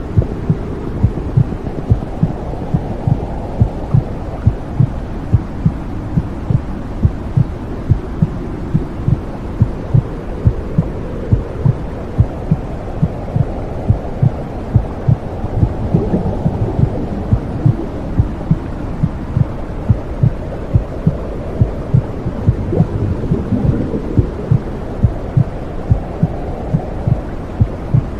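Womb-sound recording: a muffled heartbeat pulsing at roughly two beats a second over a deep whooshing rumble that slowly swells and fades.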